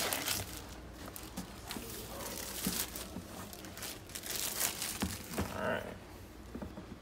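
Clear plastic shrink wrap being ripped off a boxed tablet and crumpled. A sharp tear comes at the start, then scattered crinkling and rustling with small clicks.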